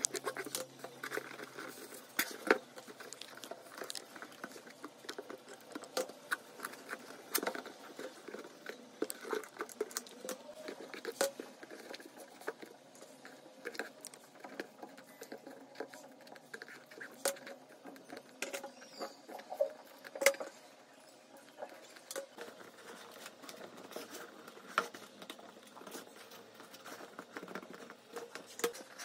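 Hands handling cotton fabric and a cardboard box while hot-gluing a fabric lining inside it: irregular rustling and scratching with scattered small clicks and taps, and a few sharper knocks standing out.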